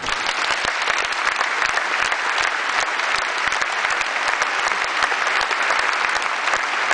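Audience applauding, dense steady clapping that breaks out suddenly and holds at an even level.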